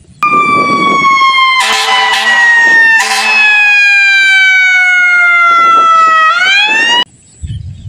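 Electronic ambulance siren sound: one long wail that glides slowly down in pitch, swings back up shortly before the end and then cuts off suddenly. A burst of hissy noise comes in over it around two to three seconds in.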